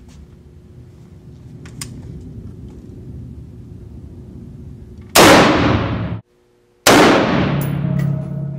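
Two rifle shots from an Adcor B.E.A.R. Elite AR-15 chambered in .223, about five seconds in and a second and a half apart, each ringing out in the echo of an indoor range.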